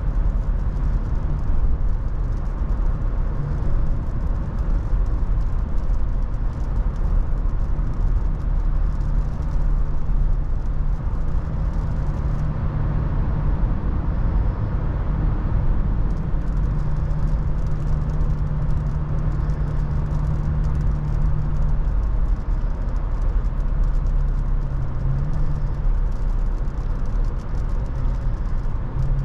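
Toyota FJ Cruiser's V6 driving at road speed: a steady engine hum under dense road and wind noise.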